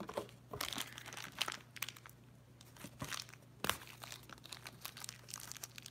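Packaging of a blind-box pin set being handled and opened: irregular crinkling and tearing rustles with a few sharp crackles.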